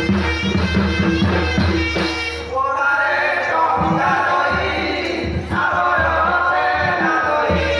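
Odia Danda Nacha folk music: a barrel drum and instrumental melody for about the first two and a half seconds, then performers singing into microphones over the drum, with a short break in the singing about halfway through.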